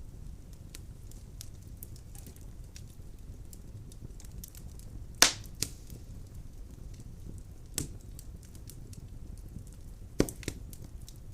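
Firewood burning in a fireplace: a steady low rumble of flame with frequent small crackles, and three loud sharp pops about five, eight and ten seconds in.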